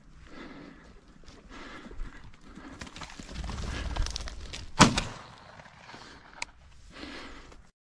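Footsteps crunching through dry corn stubble, then a single loud shotgun shot about five seconds in, followed a moment later by a short sharp click.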